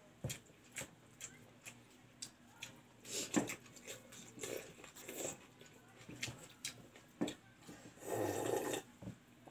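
Close-miked eating sounds: fingers working rice on a steel plate with small ticks, then chewing with short wet clicks, and a sustained slurp from a steel bowl lasting under a second, about eight seconds in.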